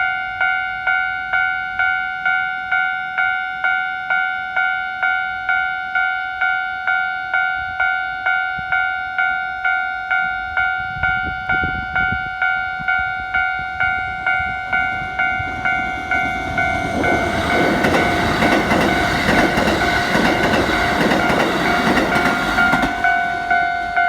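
Japanese level-crossing warning bell ringing in a rapid, evenly repeating two-tone ding. From about eleven seconds in, the rumble of an approaching Keikyu electric train builds, and near the end the train passes close by, louder than the bell, which keeps ringing.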